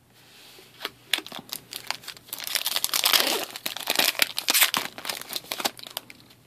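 A foil hockey card pack wrapper being torn open and crinkled by hand: a dense crackle that starts about a second in, is loudest in the middle, and thins out near the end.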